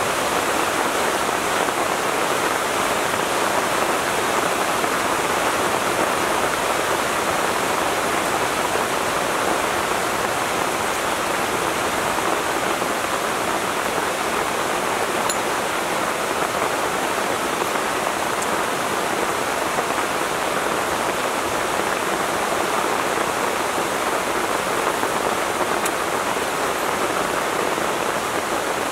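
Steady rushing noise of running water, even and unchanging throughout.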